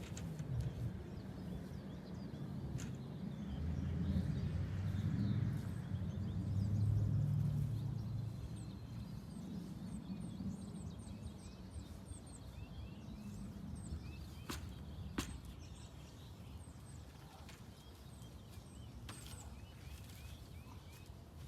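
Outdoor ambience: a low rumble swells a few seconds in and fades away, while small birds chirp faintly in the middle, with a couple of sharp clicks.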